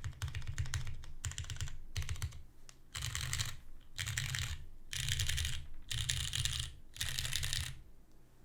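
Typing on a custom mechanical keyboard with lubed Cherry MX Brown tactile switches on a carbon fiber plate under GMK keycaps, a bassy, solid sound. Steady typing gives way about three seconds in to five short bursts of keystrokes about a second apart, ending shortly before the end.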